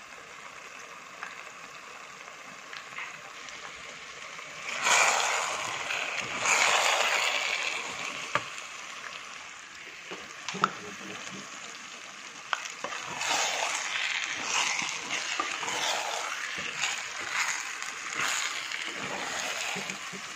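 Potato leaf stew sizzling in a pot on the stove, stirred in louder scraping stretches about five seconds in and again from about thirteen seconds on.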